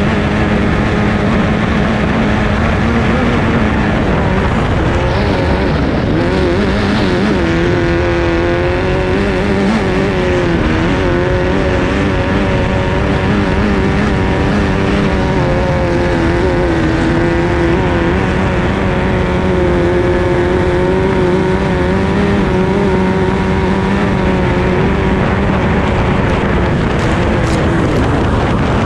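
Formula 2500 racing hydroplane's engine running at full throttle, heard from on board over a rush of wind and water. The pitch holds high and wavers, dipping briefly about five seconds in.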